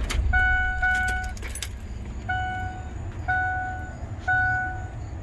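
Ford F-150 dashboard warning chime dinging about once a second, with two quicker dings near the start, over a low steady rumble in the truck cab.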